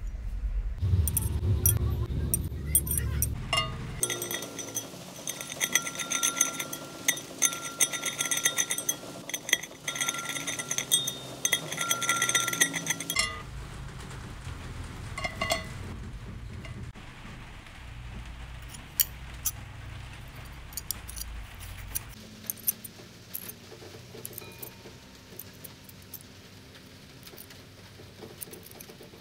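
Small metal clinks and taps as tools, screws and a wire-mesh grille are handled against a loudspeaker driver's metal faceplate. For several seconds in the first half, a steady higher tone and a low rumble sit under the clicks.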